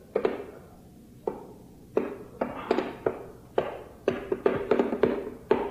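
Small hand drum struck with the hands, each stroke ringing at a low pitch. A few slow beats at first, then quickening into a running beat.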